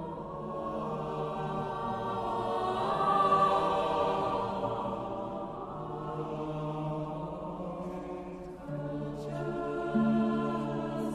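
Student choir singing slow, sustained chords. The harmony changes twice near the end.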